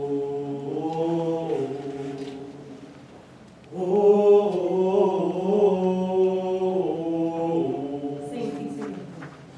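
A small group of male voices singing a cappella in close harmony, holding long sustained chords without instruments. One phrase fades out about two and a half seconds in, then a louder phrase begins near four seconds and dies away near the end.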